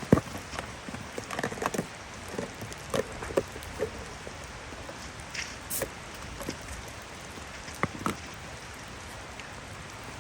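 Irregular knocks and taps, the sharpest right at the start, over a steady hiss.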